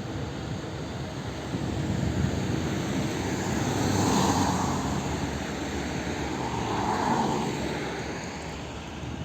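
Road traffic with heavy trucks driving past: diesel engines and tyres running steadily, swelling twice as vehicles go by, about four seconds in and again near seven seconds.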